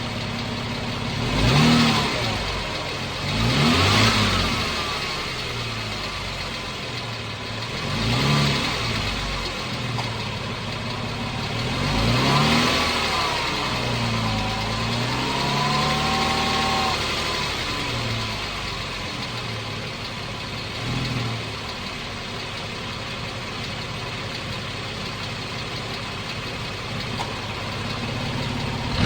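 2014 Jeep Wrangler's 3.6 Pentastar V6 engine idling and being revved up and let back down about six times, settling to a steady idle for the last several seconds.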